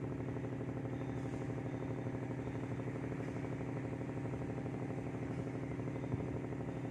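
An engine running steadily at an even speed: a constant low hum with a fast, regular pulse. There is a single small knock about six seconds in.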